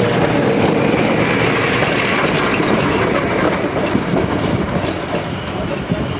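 Electric tram passing close by and pulling away, its wheels rumbling and clicking over the rails. It gets a little quieter near the end as it moves off.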